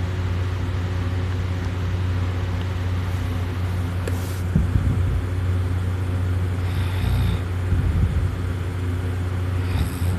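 A person snoring heavily in deep drunken sleep, the soft palate and uvula fluttering in loud rattling snores roughly every three seconds, over a steady low hum.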